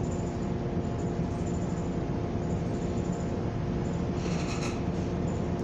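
Cabin of a New Flyer XN40 natural-gas city bus idling at a standstill: a steady low engine rumble with a constant hum. A brief high-pitched squeal cuts in about four seconds in.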